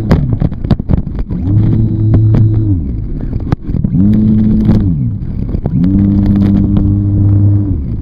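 Motor of an RC airplane heard from a camera strapped to the airframe, throttled up and down three times: its pitch rises, holds and falls each time. There are sharp knocks in the first second and again about three and a half seconds in.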